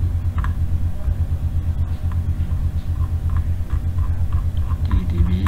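A loud steady low hum with faint, scattered clicks of a mouse scroll wheel turning through a list.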